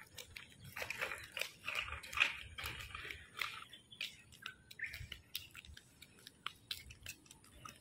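Faint scattered clicks and scraping of a child's kick scooter rolling over a rough concrete street.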